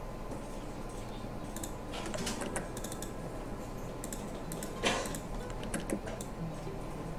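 Scattered clicks of a computer mouse and keyboard, a few at a time, the loudest about five seconds in, over a faint steady electrical hum.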